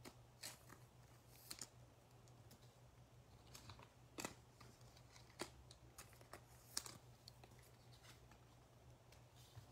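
Near silence with a handful of faint, sharp clicks and taps from trading cards being handled and set down on a table.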